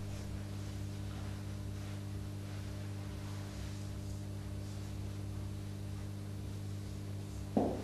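Steady electrical mains hum, a stack of low, even tones, with faint scratches of a marker writing on a whiteboard.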